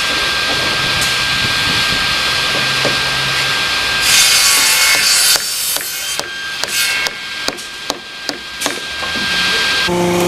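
Electric site table saw running with a steady whine. About four seconds in it cuts through a wooden board, the sound turning louder and harsher for a second or so. The saw then runs on while a few sharp knocks sound.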